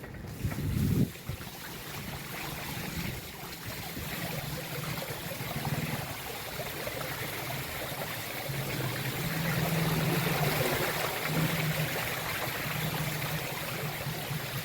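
Floodwater rushing and running, a steady hiss that swells toward the middle, with an on-and-off low hum underneath and a brief thump about a second in.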